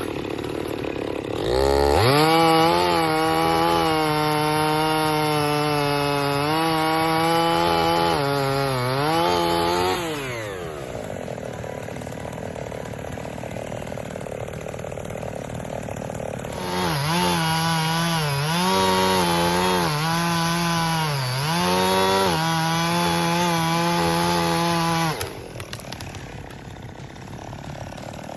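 Two-stroke gas chainsaw run at full throttle in two spells, its pitch dipping briefly several times as it bogs under load while cutting wood. Between the spells the pitch falls away and the saw drops back, and the engine note stops a few seconds before the end.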